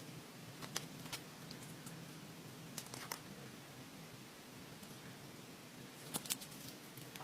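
Slime being handled: a few sharp clicking pops, roughly in pairs, over a faint low hum.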